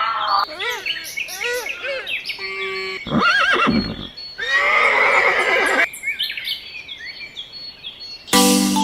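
A horse whinnying, after a series of short chirping calls, with background music starting near the end.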